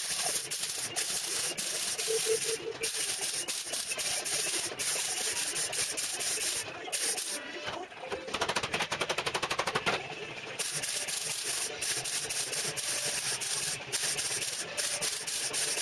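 Electric welding on steel body panels: the arc crackles and spits in stop-start runs with short pauses between welds. About halfway through comes a stretch of very rapid, even popping.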